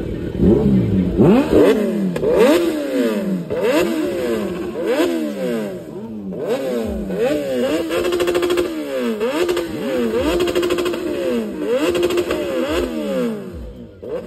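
Stationary sport motorcycles revved over and over, each engine note climbing and falling back in quick blips that overlap one another, easing off near the end.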